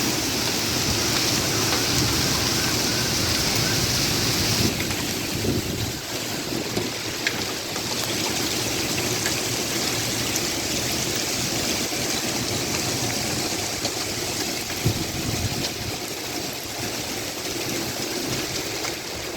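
Heavy monsoon rain and rushing floodwater making a steady hiss and rush. The rain's hiss drops away suddenly about five seconds in, and a few sharp ticks follow.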